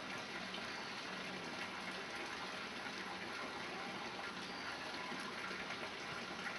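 Steady rushing background noise with a faint low hum underneath; nothing stands out above it.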